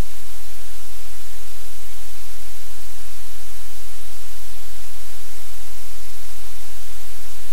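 Loud, steady static hiss with a low electrical hum beneath it, unchanging throughout; no distinct sound stands out from it.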